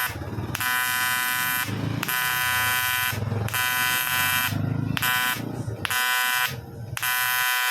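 TIG welding arc buzzing on an aluminium engine block, starting and stopping repeatedly in stretches of about half a second to a second and a half with short breaks between them.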